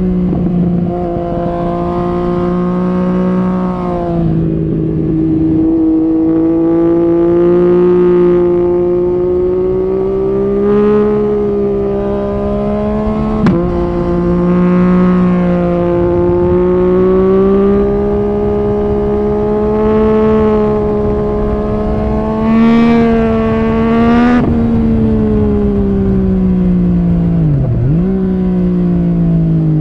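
Yamaha MT-09 SP's inline-three engine with an Akrapovic carbon exhaust, heard from on board, pulling at steady middling revs that rise and ease gently, with a sharp crack twice. Near the end the revs fall away steadily, with one quick dip and pick-up.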